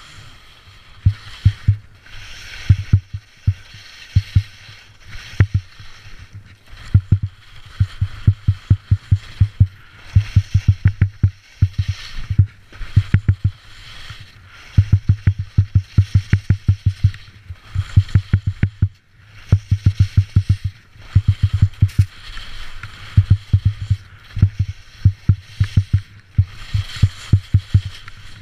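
Skis scraping and chattering on hard-packed snow through a series of turns. Each turn brings a burst of rapid low knocks, several a second, under the hiss of the edges scraping, with short lulls between turns.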